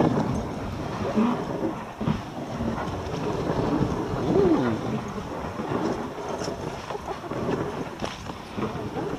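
A moving dog sled: its runners scrape and rumble over the snowy trail in a steady noisy rush. About four and a half seconds in there is a brief rising-and-falling voice-like sound.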